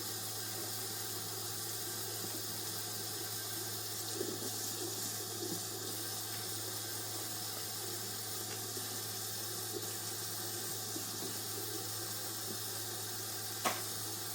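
Kitchen sink tap running steadily as dishes are washed, with a few soft clatters of dishes and one sharp clink near the end, over a steady low hum.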